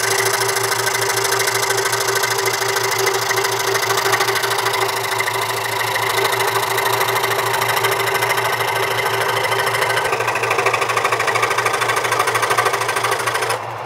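Carbatec SS-400H scroll saw running, its pinless blade reciprocating rapidly up and down and cutting a thin sheet of wood fed slowly by hand: a steady, fast mechanical chatter over the motor's hum. The higher, rasping part of the sound thins out shortly before the end.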